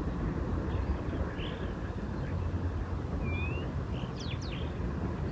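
A few short bird chirps, one about three seconds in and a couple more just after four seconds, over a steady low rumble.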